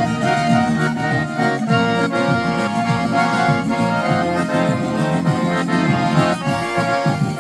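Garmon (Russian button accordion) playing an instrumental chanson melody, with a moving bass line under sustained chords.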